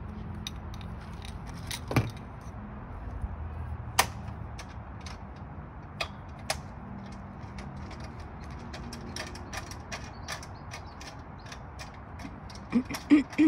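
Carefree of Colorado RV awning arm being worked by hand as its replacement spring is tightened: a steady run of light ratchet-like clicks, several a second, with sharper knocks about two, four and six seconds in and a few louder clacks near the end.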